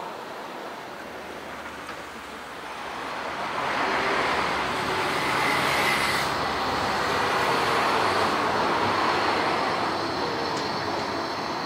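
Road traffic passing at a city junction: a vehicle goes by close to the microphone, its noise swelling a few seconds in and easing off near the end.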